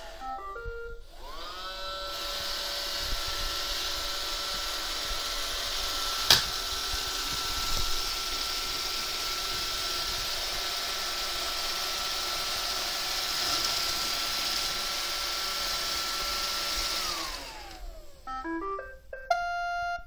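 iRobot Roomba 570 robot vacuum. Its motors wind down and it gives a few short beeps, then its vacuum and brushes spin back up to a steady whine as it drives to its charging dock, with one sharp click about six seconds in. Near the end the motors wind down as it docks, followed by a short run of electronic beep tones.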